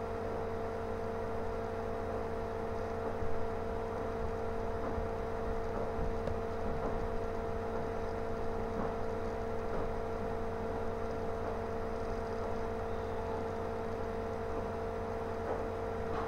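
Steady electrical hum with a constant mid-pitched tone over a low drone, unchanging throughout, with one faint click about three seconds in.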